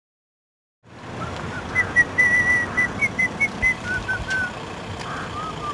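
Silence, then from about a second in, outdoor background noise and a person whistling a short tune of quick, clear notes that step lower near the end.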